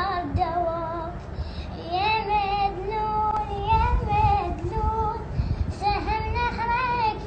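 A child singing an Arabic lament in a high voice, drawing out long wavering notes that bend up and down, with short breaks between phrases.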